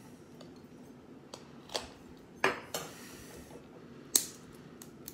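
Toy packaging being handled and worked open: a handful of sharp plastic clicks and crackles, the loudest about two and a half seconds in and again about four seconds in.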